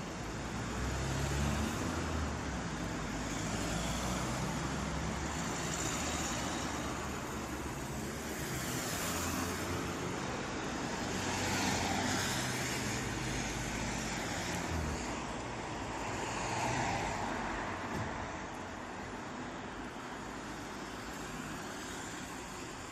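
Road traffic: a continuous rumble of engines and tyres on the road, with a low engine hum through the first half. Several vehicles swell past, loudest about twelve seconds in.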